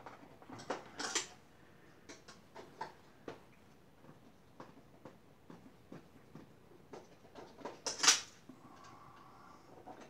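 Screwdriver working screws out of an IBM pSeries server's sheet-metal chassis: scattered small metallic clicks and scrapes, with a loud metal clack about eight seconds in.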